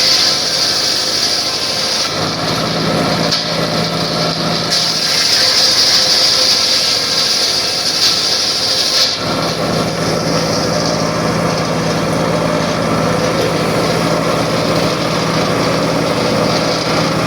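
Circular saw cutting through wood, with a high-pitched cutting sound twice: at the start and again from about five to nine seconds in. Between the cuts and through the rest, the saw runs free with a steady hum.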